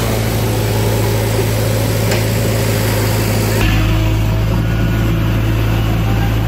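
JCB backhoe loader's diesel engine running steadily at work, with a strong low hum. The sound shifts abruptly about three and a half seconds in.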